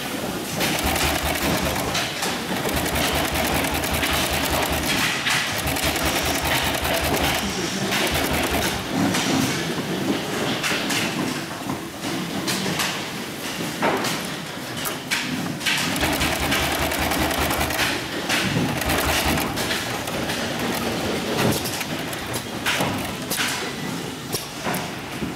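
Hightex double-needle upholstery sewing machine with a large barrel shuttle running in several short bursts, its needles stitching through heavy upholstery material with a fast, even knocking, stopping and starting between runs. Machine noise of a sewing workshop underneath.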